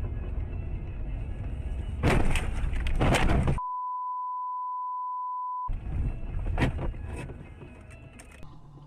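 A steady single-pitch beep lasting about two seconds in the middle, with all other sound cut out beneath it, as in a censor bleep. Before it, loud rumbling noise with a burst of crashing bangs; after it, a few sharp knocks over a rumble that fades.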